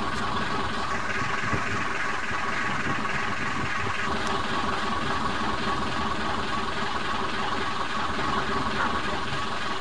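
Narrow-gauge diesel locomotive's engine running steadily at low speed, a constant hum with a low rumble beneath.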